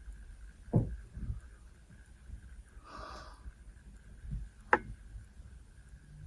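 Small body and breathing sounds of a woman dozing sitting up: a few soft low thumps, one breath through the nose about three seconds in, and a sharp click near the end.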